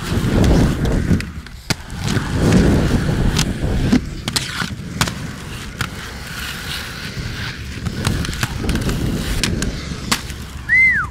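Aggressive inline skate wheels rolling over concrete and asphalt, with a run of sharp clacks as the skates hit the ramp coping and land.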